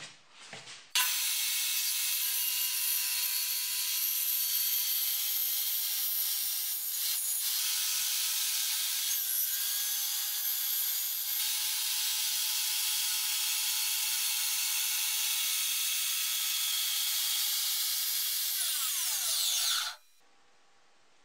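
Homemade table saw running steadily while its blade is cranked up through the zero-clearance insert, cutting the insert's slot. It starts about a second in, and near the end it falls in pitch as it spins down, then stops.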